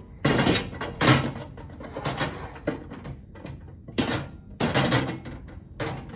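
Cleaning and handling sounds inside a microwave: a series of about six short, irregular scuffing swishes.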